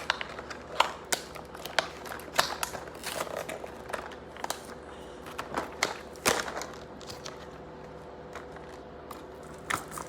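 Hands working at a small taped toy package, the tape and packaging giving irregular clicks, crackles and crinkles, with one louder snap about six seconds in.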